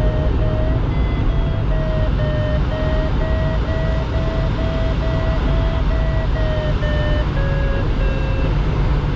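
Glider variometer beeping in a run of short tones, about two a second, the sign that the glider is climbing in rising air. The pitch rises a little about a second in, then drops over the last couple of seconds before the beeps stop near the end. A steady rush of airflow over the cockpit runs underneath.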